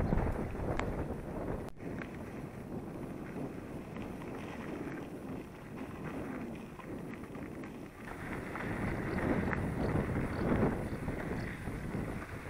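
Wind buffeting the microphone: a rushing noise that swells and eases in gusts, strongest at the very start and again over the last few seconds.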